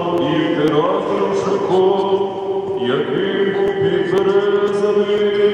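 Liturgical chant sung by male voices, with long held notes that step up and down.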